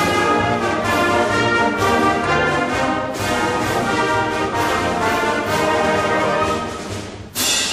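Orchestral music led by brass, playing sustained chords with sharp accents at a regular beat. It fades briefly near the end, then a loud new chord comes in.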